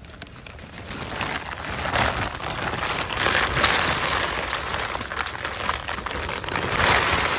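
A heap of dry, brittle tamarind pods tumbling out of a plastic sack onto a woven mat: a continuous dense rattle of light shells clattering together, with the sack crinkling. It builds up in the first couple of seconds and is loudest around the middle and again near the end.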